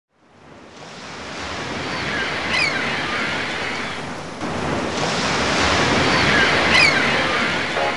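Sea surf: a steady wash of waves fading in from silence, with short high chirps about two and a half seconds in and again near the end.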